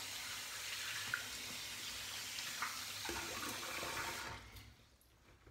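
Tap water running into a sink as hands are rinsed under it, stopping about four seconds in.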